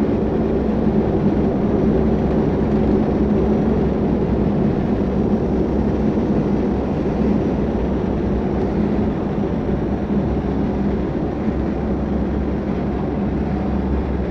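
Steady drone of an aircraft's engines and airflow heard from on board, with low hums under it, easing slowly as the aircraft slows on the runway after touchdown.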